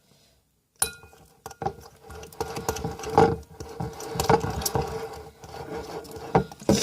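A spoon stirring stiffening slime in a bowl, giving irregular clinks and knocks against the bowl from about a second in. A faint steady hum runs underneath.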